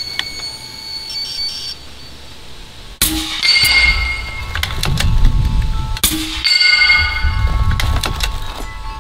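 Slugs from a Bintac MCAR .457 big-bore rifle hitting the steel plates of a Texas Star target. There are two sharp hits, about three and six seconds in, each giving a ringing metallic clang over a low rumble, and a third hit comes right at the end.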